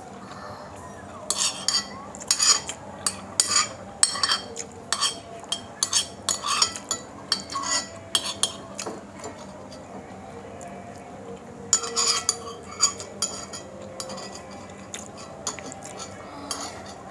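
Cutlery clinking and scraping against a dish during a meal: a run of quick clinks for several seconds, a pause, another short run, then a few scattered clinks.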